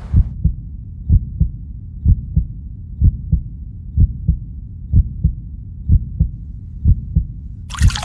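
Slow heartbeat: low double thumps, lub-dub, about once a second, over a low steady hum.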